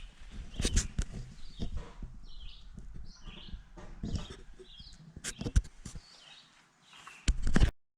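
A bird chirping repeatedly, about once a second, over irregular low knocks and thumps close to the microphone. The sound cuts off abruptly just before the end.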